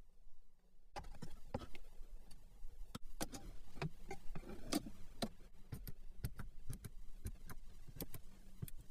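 A run of irregular clicks and taps, starting about a second in, from hands working the MG7's overhead fittings: the sunglasses holder flipped open and shut and the roof console buttons pressed.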